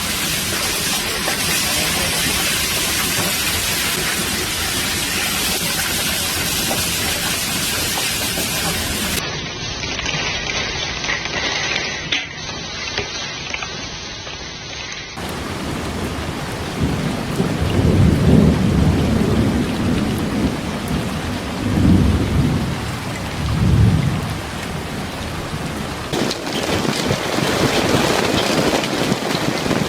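Heavy hail and rain pelting down in a thunderstorm, as a dense steady hiss across several spliced clips. Several low, loud rumbles come in the second half.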